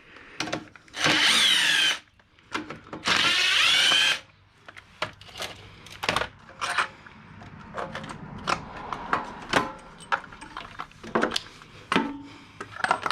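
A cordless power driver runs in two bursts of about a second each, backing screws out to take the carburetor assembly apart. Scattered clicks and knocks of parts and tools being handled follow.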